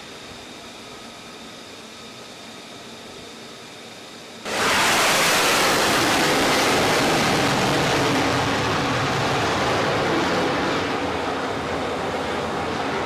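Steady hiss with a faint high whine, then about four and a half seconds in a loud jet engine noise cuts in abruptly and slowly eases off.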